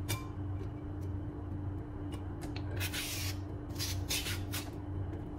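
A vegetable peeler scraping down a cucumber, pulling off long ribbons in several strokes. The longest strokes come about three and four seconds in.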